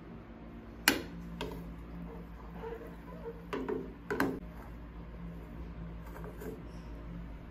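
Plastic ladle knocking and scraping against a cooking pot and a plastic bowl while scooping boiled broccoli and carrots: a sharp clack about a second in, a lighter one just after, and a few more knocks around three and a half to four seconds in, over a steady low hum.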